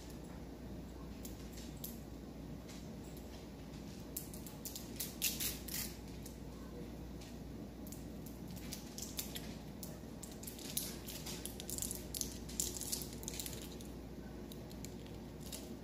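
Foil wrapper on a chocolate cigar crinkling and crackling as fingers peel it off, in scattered bursts a few seconds in and again through the second half, over a steady low room hum.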